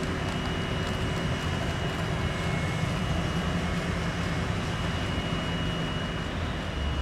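Steady vehicle rumble, with a faint steady high-pitched whine over it.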